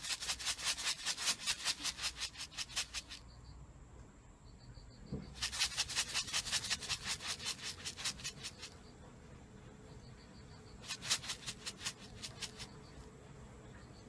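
A plastic bag being shaken quickly right beside a cockatiel, giving fast, even rattling clicks in three bursts of a few seconds each.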